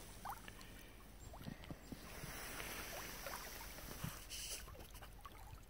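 Pond bubbler's air bubbles rising and breaking the surface of open water in an iced-over pond: faint, irregular bubbling and plopping, with a brief hiss a little past four seconds in.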